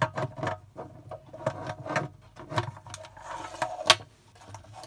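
Irregular clicks and rattles of plastic toy pieces being handled, with one sharper click shortly before the end.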